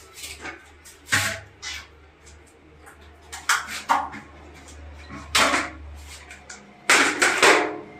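Several sharp knocks and clatters from a toilet seat and lid being handled on a ceramic one-piece toilet, the loudest cluster near the end, over a steady low hum that stops about seven seconds in.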